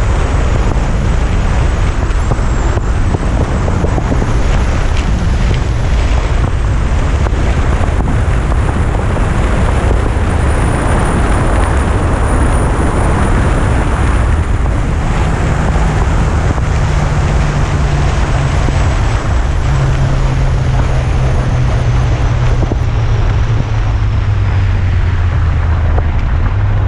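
Yamaha FJR1300 motorcycle riding at road speed: steady wind rush on the microphone over the inline-four engine's drone. In the second half the engine note drops in steps as the bike slows.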